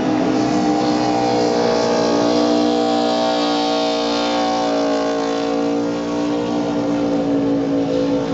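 NASCAR truck's V8 engine held at steady high revs during a burnout, rear tyres spinning and smoking on the asphalt.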